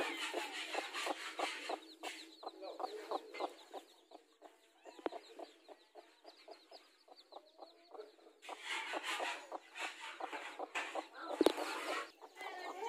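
Mother hen clucking in short, rapid runs while her chicks peep in high, thin chirps, quieter for a few seconds mid-way. One sharp knock near the end.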